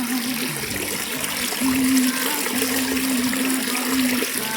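Heavy rain falling with water running. Over it a low humming tone holds and steps up and down in pitch, loudest from about the middle to near the end.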